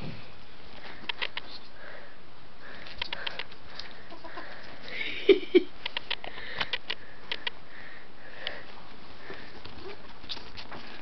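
Ferrets play-fighting on bedding: a scatter of short clicks and rustles, with the quick clucking chatter (dooking) that ferrets make in play, and two louder short sounds a little over five seconds in.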